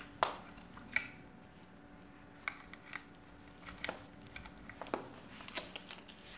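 A scattering of short clicks and rustles from handling a plastic food packet and a luggage scale's nylon strap and metal hook as the strap is fitted around the packet.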